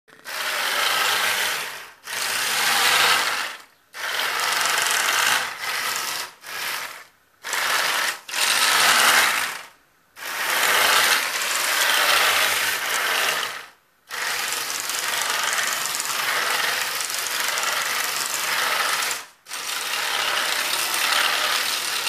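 Motors and gearboxes of a remote-control tracked vehicle whirring while its segmented tracks clatter. The sound comes in runs of one to five seconds that stop dead and start again as the vehicle drives and halts.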